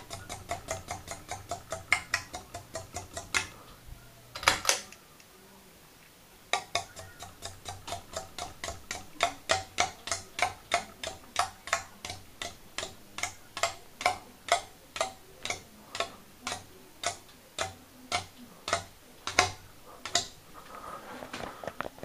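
Hampton Bay Glendale ceiling fan running with a rhythmic clicking that repeats as it turns. About four and a half seconds in there is a brief louder rattle and a short lull, then the clicking returns and slows steadily from about four a second to under two a second as the fan slows down.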